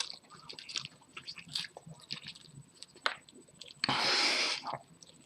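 A man wolfing down pizza as fast as he can, with rapid wet chewing, smacking and clicking mouth sounds. About four seconds in there is one loud hissing rush of breath, under a second long.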